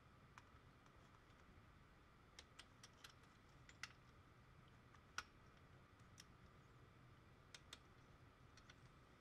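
Near silence with faint, scattered small clicks and taps, the loudest about five seconds in: hose fittings and small engine parts being handled by hand.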